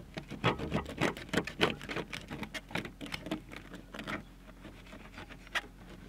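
Knife sawing through the crisp crust of a freshly baked damper loaf: a quick, irregular run of dry crunching crackles for about four seconds, then a few scattered ones as the cut finishes.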